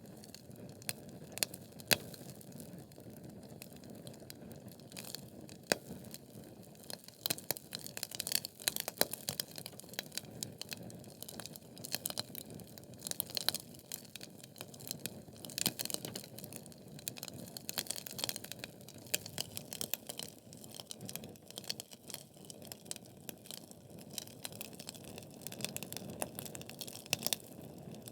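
Wood logs burning in a fireplace: a steady low rush of flame with constant irregular crackles and sharp pops, busiest in the middle stretch.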